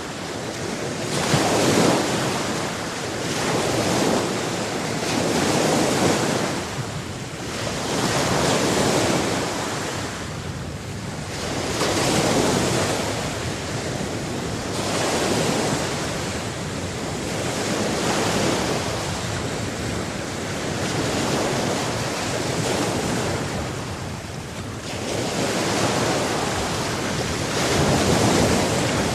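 Ocean waves breaking and washing up the shore, a continuous surf wash that swells and ebbs every few seconds.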